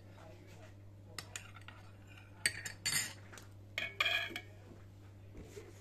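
Metal cooking utensils clinking and clattering against cookware: a few light clicks, then two short bursts of clatter about two and a half and four seconds in.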